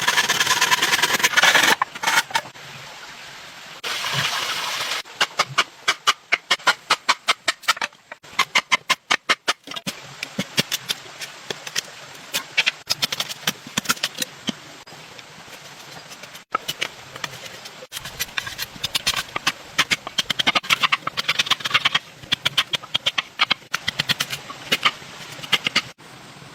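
Many sharp knocks and clicks in quick runs, fastest about a third of the way in, with two short bursts of rasping noise in the first five seconds.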